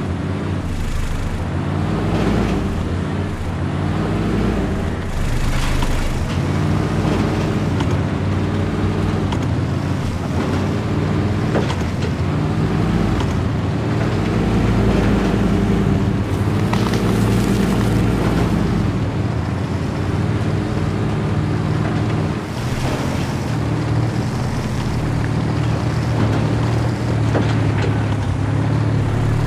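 Motors of RC scale crawler trucks running continuously, their pitch rising and falling over and over as the throttle comes on and off, with wind noise on the microphone.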